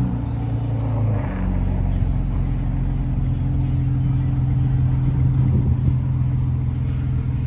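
2015 Chrysler 200 exhaust with the muffler removed (single-in, dual-out), the engine running at a steady speed with a low, even drone; the pitch shifts slightly a little over a second in.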